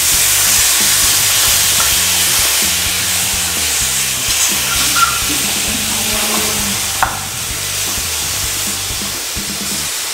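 Meat sizzling on a hot grill pan over a portable gas stove as it is laid on; the sizzle starts suddenly and eases a little. A single sharp click about seven seconds in, with faint background music low underneath.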